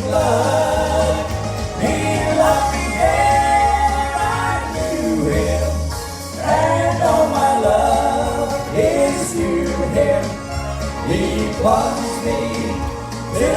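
A vocal trio singing a gospel song in harmony over an instrumental accompaniment with a steady bass line, the voices holding long notes.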